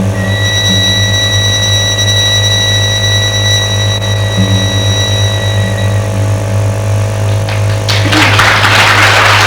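Live violin-and-guitar duo music closing on a long, high held note over a steady low hum. Near the end, a short loud burst of noise.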